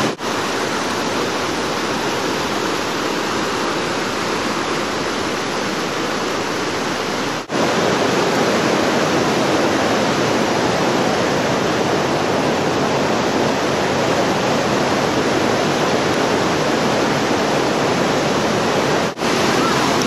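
Steady rush of falling and running water from a mountain stream and waterfall, broken by a few very brief gaps and a little louder after the middle one.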